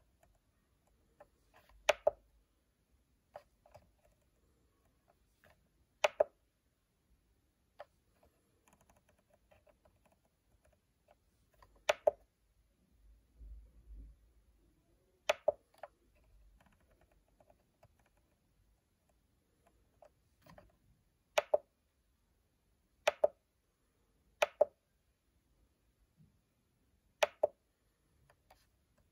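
Front-panel buttons of an SMC4-4-16A16B CNC motion controller clicking as they are pressed to step through its menus: about eight sharp clicks at irregular intervals, several of them doubled.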